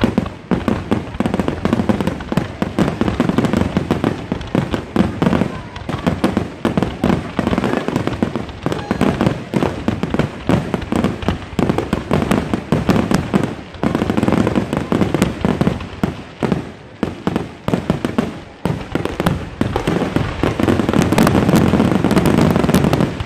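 Fireworks going off in a rapid, continuous barrage of firecracker bangs, many a second. The bangs thicken into a dense, loudest stretch near the end, then break off suddenly.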